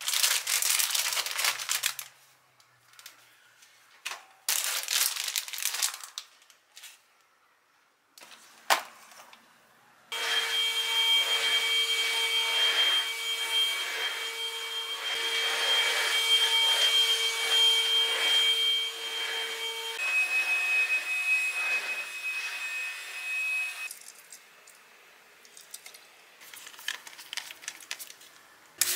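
Aluminium foil crinkling in two short bursts, then a vacuum cleaner switched on about ten seconds in, running with a steady whine. Its note changes about twenty seconds in, and it stops about five seconds before the end.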